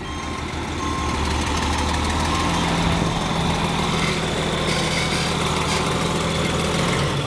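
Loaded dump truck's diesel engine running steadily, growing louder over the first second or two, with a higher engine tone joining about two and a half seconds in.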